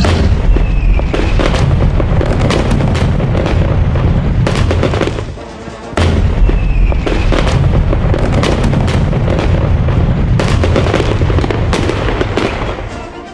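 Fireworks going off: a dense run of bangs, crackles and low booms with a short falling whistle, breaking off briefly and then repeating almost identically.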